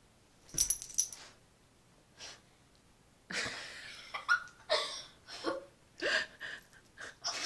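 A few sharp clicks about half a second in, then from about three seconds in a run of short, irregular breathy puffs and gasps close to the microphone.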